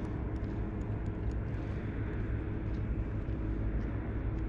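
Steady low rumble of city traffic with a faint hum, unbroken throughout.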